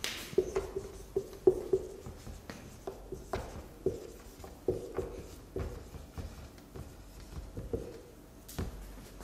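Marker pen writing on a whiteboard: a run of short, irregular strokes and squeaks as words are written.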